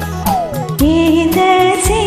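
Karaoke backing music with a steady drum beat and bass under a melody; about half a second in, one melodic line slides down in pitch and then settles on a held note.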